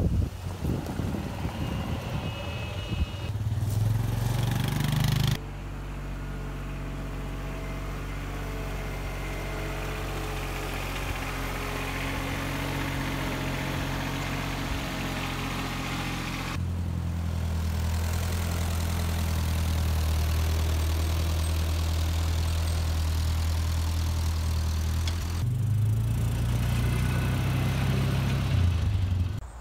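Small vehicle engines running in turn as different machines pass one at a time: a golf cart, a John Deere compact tractor with a front loader, and a side-by-side UTV. Each has a steady engine note, and the sound changes abruptly about 5, 17 and 25 seconds in.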